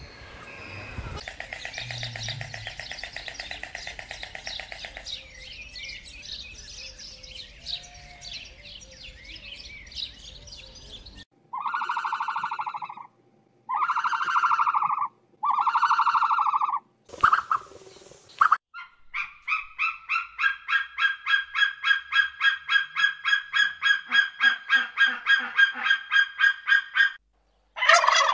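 A run of bird calls: chattering calls for about ten seconds, then three long, loud honks about two seconds apart, a short burst, and a long fast series of pulsed calls at about four a second. It ends with a domestic turkey gobbling.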